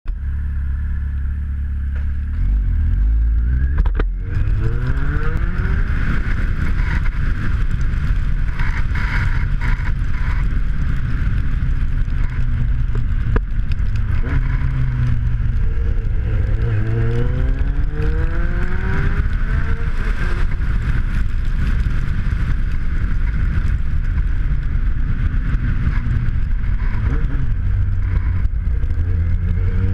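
Kawasaki Z750's inline-four engine ticking over, then pulling away and climbing in revs several times as the bike accelerates, with wind and road noise heard from on the bike. There is a sharp click about four seconds in.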